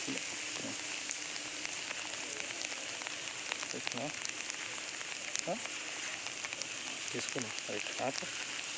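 Steady hiss of rain falling on open reservoir water, with faint scattered drop ticks.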